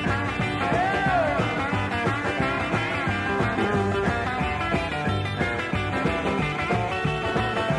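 Rock and roll music, instrumental with no singing, with a steady beat and a bending lead line about a second in.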